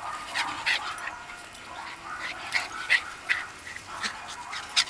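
Small dogs at play giving short, sharp yips and barks, about half a dozen scattered through.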